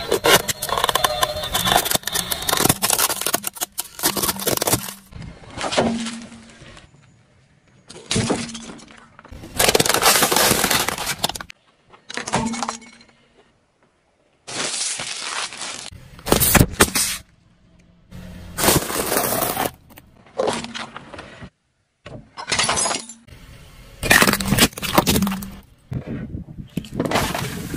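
Objects being crushed under a car tyre one after another: about ten separate bursts of cracking and crunching, among them a plastic toy bus breaking, each cut off abruptly.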